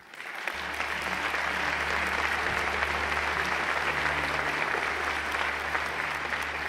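Audience applauding: a steady, sustained round of clapping that swells in the first second and holds.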